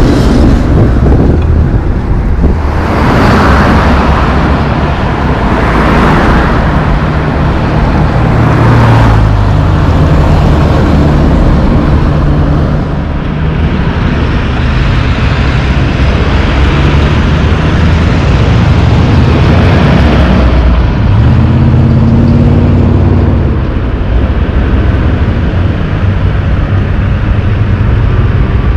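Loaded diesel logging trucks running on the road, a deep engine note that rises and falls in pitch as they pull away and pass, with tyre and traffic noise; louder surges come in the first ten seconds as a truck rolls by close.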